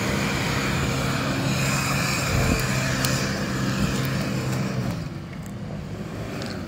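Off-road 4x4's engine held at steady high revs under load as it pushes up a muddy slope, with the driver keeping the throttle open. The engine eases off about five seconds in.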